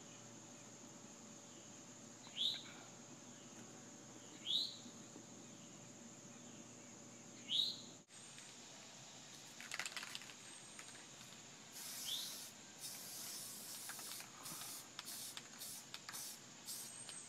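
A bird gives short rising chirps about every two seconds. After a sudden break there are some quick ticks, then an aerosol spray-paint can hisses in a run of short bursts.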